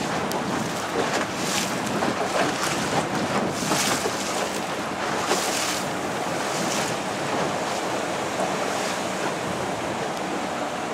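Wind buffeting the microphone over open sea water, with waves splashing and surf washing on shore rocks, swelling several times in the first seven seconds. A small motor boat's engine drones steadily underneath.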